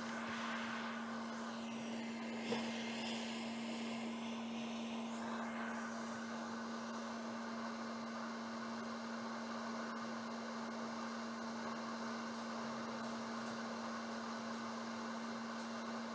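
Hot air rework station blowing steadily over a laptop logic board, an even hiss over a constant hum, reflowing a fluxed voltage regulator chip to clear corrosion from its pins. The hiss shifts during the first few seconds, and there is one small tick.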